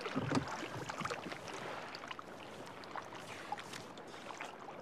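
Wooden rowboat being rowed: scattered knocks and clicks of the oars working, with water sounds over a steady light noise, a little louder in the first half second.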